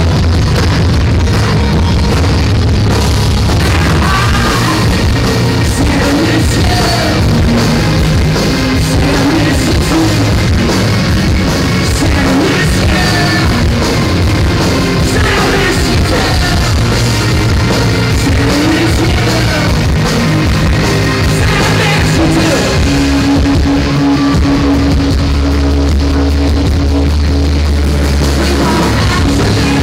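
Live rock band playing: electric guitars, bass and drum kit, with a male lead singer.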